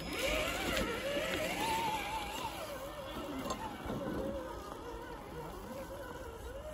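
Electric motor and gear whine of a Traxxas TRX-6 RC crawler, its pitch rising and falling continuously as the throttle is worked.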